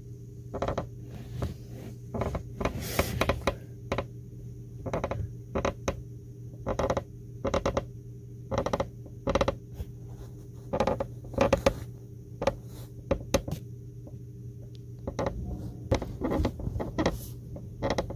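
Tesla Model 3 Highland seat creaking, many short irregular creaks and clicks as the seat is loaded, over a steady low hum.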